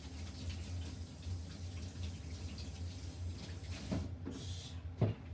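Water running from a kitchen tap, shut off about four seconds in, followed by a couple of knocks.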